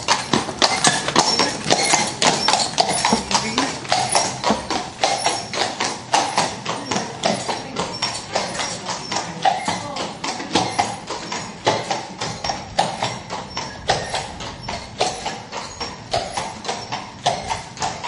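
Horse hooves clattering in a rapid, continuous patter of strikes that gradually grows quieter.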